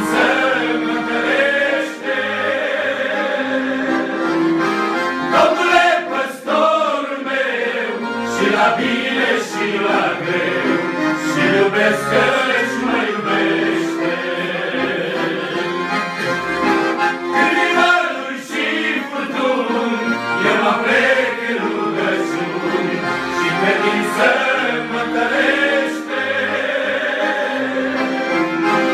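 Accordion playing a lively tune, with a group of men's voices singing along.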